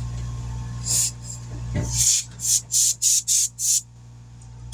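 A series of short hissing bursts, one and then about six in quick succession, like squirts of a sprayer or an air nozzle during tire mounting, over a low steady machine hum that fades about two seconds in.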